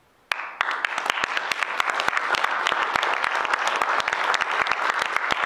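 Audience applause: many hands clapping in a dense, steady patter that breaks out suddenly a moment after a brief silence.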